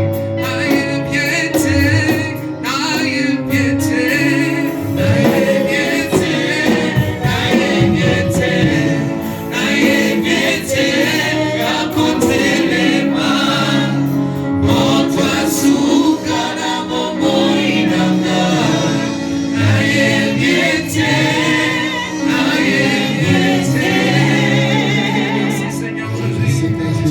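Gospel worship song: a choir singing over instrumental accompaniment, continuous and loud.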